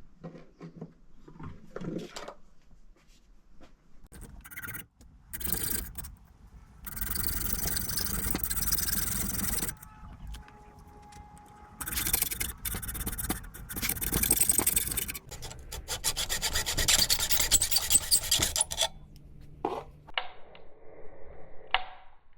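Quick rasping strokes of hand filing against a part of the blender, in three long runs with short pauses between them, after a few scattered clicks and knocks.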